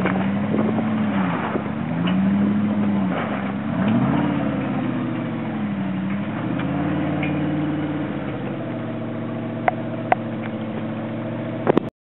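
V8 engine of a Toyota Hilux rock crawler revving up and down again and again as it crawls over creek rocks, then settling to a steadier run. Two sharp clicks come near the end, and the sound cuts off suddenly just before the end.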